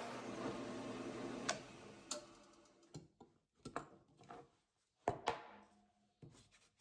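Drill press motor humming and spinning down over the first couple of seconds, followed by a scatter of sharp knocks and clicks as wooden blocks and a metal drill-press vise are handled on the table.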